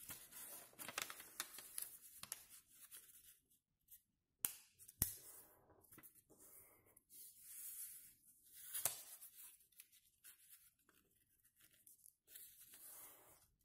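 Sheet of origami paper rustling and crackling as hands fold and crease it, in faint irregular bursts, with two sharp crackles about a third of the way in.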